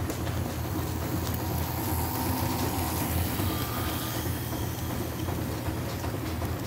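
Model train running past at close range: a steady low hum from the locomotives' motors and the freight cars' wheels rolling along the track, with a few faint clicks.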